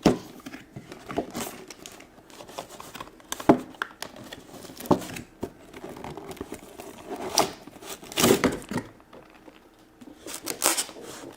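Toy box being opened and unpacked by hand: irregular crinkling and rustling of packaging with scattered sharp clicks, louder bursts of crinkling about eight seconds in and again near the end.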